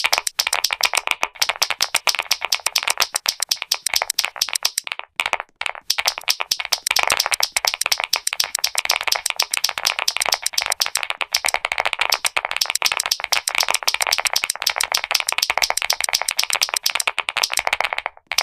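Clicky mechanical keyboard keys being pressed in a fast, continuous clatter of sharp clicks, with a brief pause about five seconds in.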